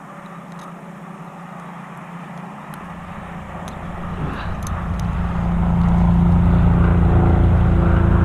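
A motor engine drawing near: a steady low hum that grows much louder from about three seconds in, then holds.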